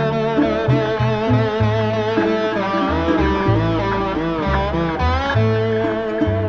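Background music: a guitar lead melody with wavering, bending notes over a bass line that changes every half second or so.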